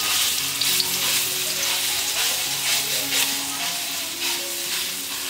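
Seasoned prahok (fermented fish paste with herbs and chili) sizzling in hot oil in a metal wok while a metal spatula breaks it up and stirs it, scraping the pan over and over against a steady frying hiss.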